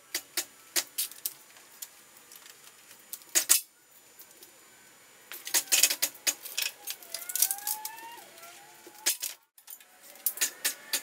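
Scattered metallic clicks, clanks and rattles as a Nissan Y60 Patrol's body is lifted off its chassis on a two-post hoist, with a short wavering squeak about seven seconds in.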